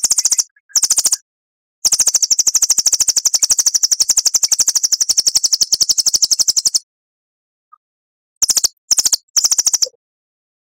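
Songbird master recording of a high, very rapid rattling trill: two short bursts, then one long trill of about five seconds, then three short bursts, with dead silence between the phrases. This is the long 'nembak' (shooting) type of phrase used to teach cage birds.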